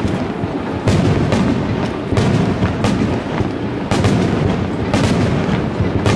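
Aerial fireworks shells bursting, about one boom a second, each a sharp crack that trails off in an echo over the lake, above a continuous low rumble.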